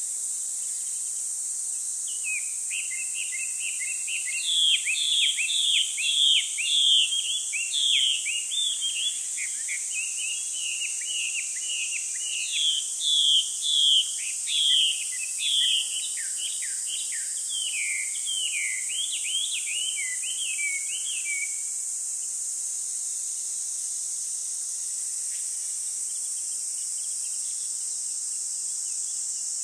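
A small songbird sings a long run of quick, sweeping chirping notes that stops about twenty seconds in. Under it, a steady, high-pitched drone of crickets.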